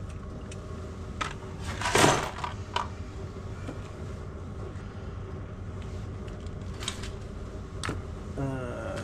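Nuts, bolts and small metal motorcycle parts being handled and sorted on a workbench: scattered light clicks and clinks, with one louder clatter about two seconds in.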